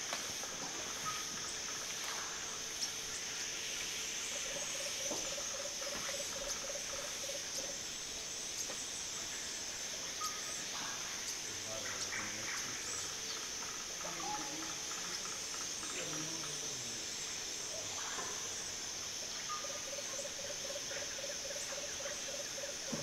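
Forest ambience: a steady high insect buzz, with a low, rapid trill of about ten notes a second heard twice for roughly three seconds, a few seconds in and near the end, and scattered short bird calls.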